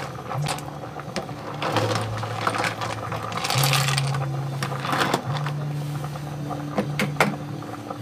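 A metal ladle stirring and scooping through a pot of snails in coconut-milk sauce, clinking against the pot and the snail shells, with a brief splash of sauce about three and a half seconds in. Background music with sustained low notes runs underneath.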